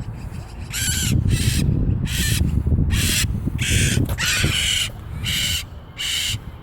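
A bird calling with harsh, raspy screeches, about eight in a row, each short and coming a little under a second apart, over a low rumble.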